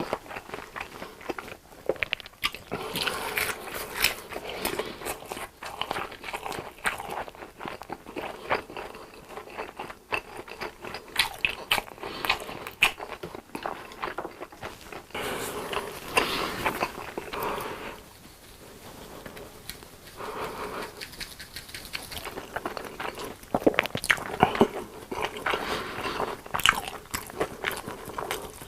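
A person eating close to the microphone: crunchy bites and chewing in irregular bursts, with a short quieter pause about two-thirds of the way through.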